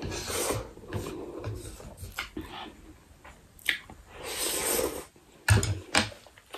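A person slurping instant ramen noodles off chopsticks, two long slurps about four seconds apart, with small mouth and utensil clicks between them. Near the end come a few sharp knocks of wooden chopsticks being set down on a wooden tray.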